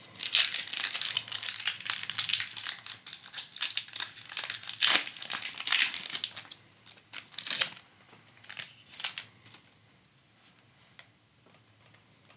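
Hockey card pack's foil wrapper being torn open and crinkled. It crackles densely for about eight seconds, then only a few scattered crinkles follow.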